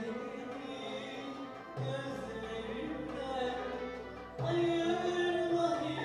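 A woman sings a Turkish art-music song live into a microphone, holding long notes, backed by a small ensemble of kanun, clarinet, keyboard and hand drum. The music gets louder, with a deeper note underneath, about four and a half seconds in.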